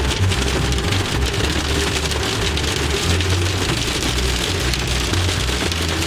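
Hail and rain pelting a car's roof and windshield, a dense steady patter heard from inside the cabin, with the car's low rumble underneath.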